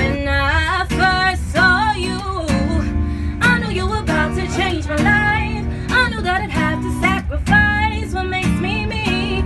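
Acoustic guitar strummed in chords while a woman sings wordless, gliding vocal runs over it.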